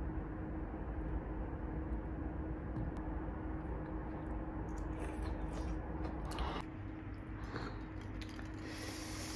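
Steady low room hum with a faint steady drone, under soft eating sounds: a few light clicks of a fork against a bowl and quiet chewing, mostly in the second half.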